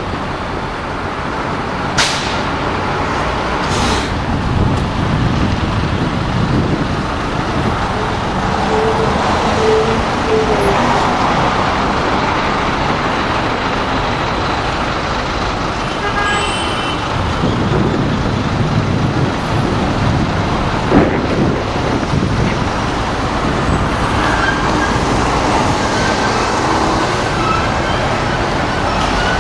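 City street traffic: cars and buses running and passing at an intersection, a steady noise of engines and tyres. Short horn toots come about nine seconds in, and sharp knocks about two, four and twenty-one seconds in.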